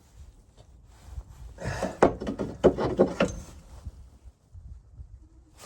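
Knocks and rattles of the old rear shock absorber being worked down and free of its upper mount, a quick run of clunks lasting about two seconds from roughly a second and a half in.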